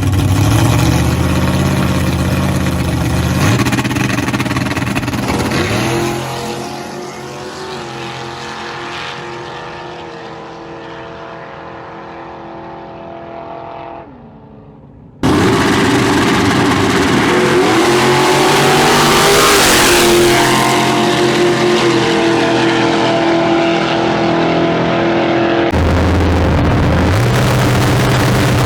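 Big-block Chevy V8 with a tunnel ram intake running hard on a drag strip pass, pulling away and fading over several seconds. Then, abruptly, a loud engine at high revs again, its pitch rising and shifting.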